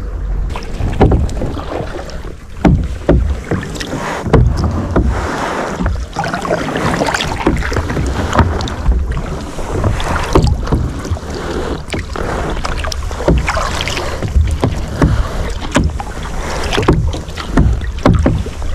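Sea kayak paddle strokes: the double-bladed paddle dips and splashes in a steady rhythm, about one stroke a second, while water sloshes and gurgles along the plastic hull close by. A low wind rumble on the microphone runs underneath.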